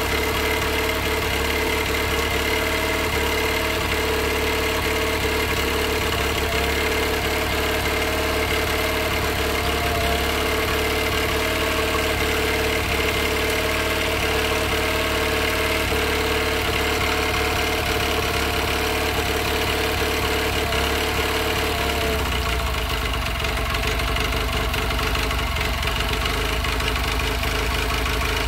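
Honda BF9.9 four-stroke outboard motor running steadily on a stand. About three-quarters of the way through, a mid-pitched hum in its note drops out and the running turns deeper.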